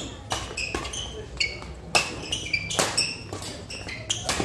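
Badminton rally: sharp cracks of rackets striking the shuttlecock, several times, roughly a second apart. Between the hits come short high squeaks of players' shoes on the court floor.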